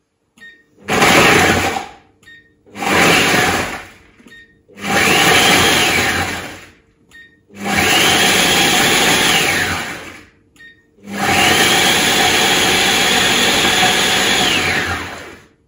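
Kenwood Cooking Chef Experience food processor bowl with its knife blade, run in five pulses that grow longer each time, chopping speculoos and digestive biscuits into crumbs. In each pulse the motor's whine rises as the blade spins up and falls as it stops.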